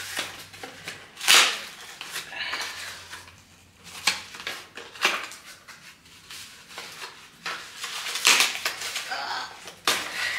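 Corrugated cardboard box being torn open by hand: a series of short, sharp tearing and crackling sounds with rustling between. The loudest comes about a second and a half in, another near eight seconds in.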